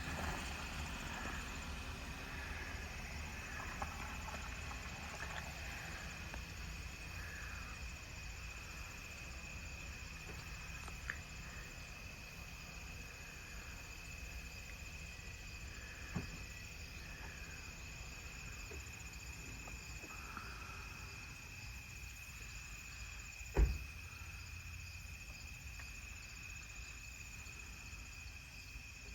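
Steady chorus of insects trilling at one high pitch on a late-summer evening, over a low background rumble. A few faint chirps, and three isolated knocks, the loudest about three-quarters of the way through.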